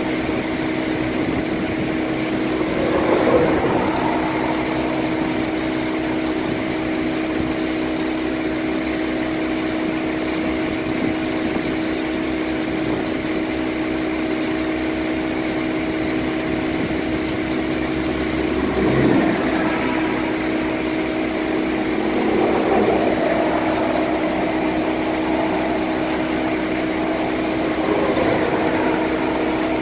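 Street sweeper's engine running steadily with a constant hum, swelling briefly a few times.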